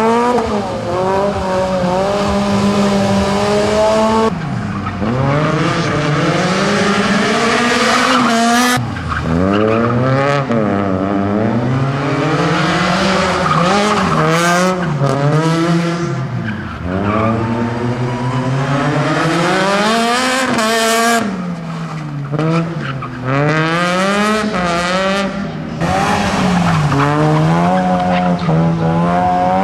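Rally car engine revving hard, held high for the first few seconds, then rising and falling again and again, with tyres squealing and skidding.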